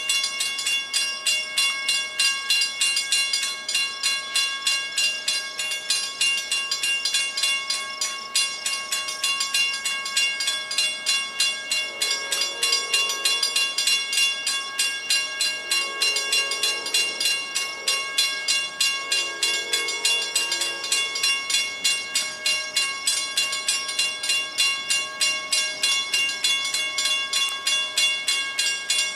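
Grade-crossing warning bell ringing continuously in quick, evenly spaced strokes. A distant locomotive horn sounds three times in the middle.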